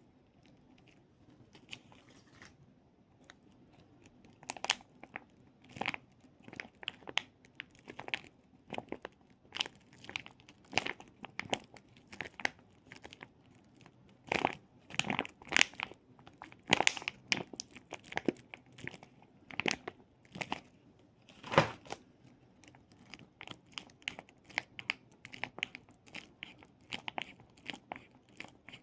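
Close-up crinkling and crackling in irregular bursts of short, sharp clicks, from small plastic toys or stickers being squeezed and handled.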